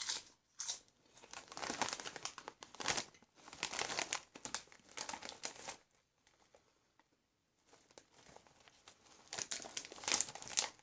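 Potato chip bag crinkling as it is handled, in irregular bursts for about six seconds, a pause, then more crinkling near the end.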